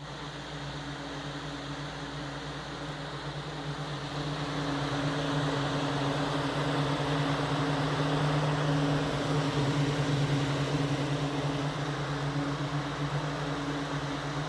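Vintage Emerson Electric 20-inch reversible box fan running: its motor hums with a steady low tone under a rush of air from the blades, growing louder a few seconds in as it comes up to speed. It cuts off suddenly at the end.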